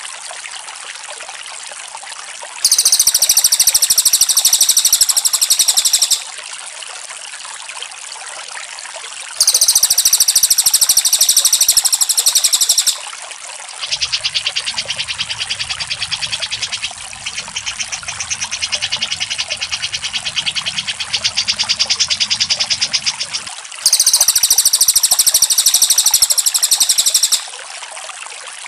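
Songbird trills from a cucak jenggot and cililin song-training (masteran) recording. Very high, rapid buzzing trills come in three bursts of about three and a half seconds each, and a lower, rattling trill runs for about ten seconds in the middle. Trickling water runs steadily underneath.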